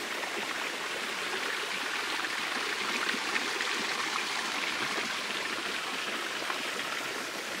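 Shallow creek water trickling among stones, a steady, even rush of running water.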